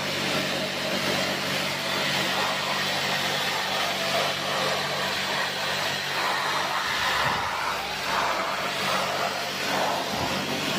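Electric high-pressure washer running, its water jet spraying steadily: an even hiss of spray over a steady motor hum.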